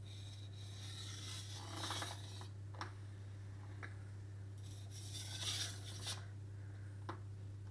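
Chef knife blade drawn across a wet JNS 800 whetstone, a coarse 800-grit soaker stone, in two light strokes, each a rasping scrape of about two seconds, with a few small clicks between them. These are fine, light-pressure passes to remove the burr left by the coarse stone.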